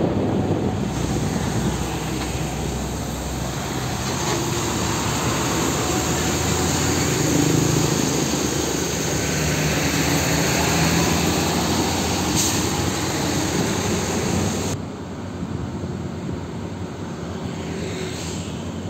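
Heavy diesel fuel tanker trucks, an Isuzu Giga tractor unit among them, running past on the road: a low engine drone with road noise. About 15 seconds in the sound cuts abruptly to a quieter, duller passing truck.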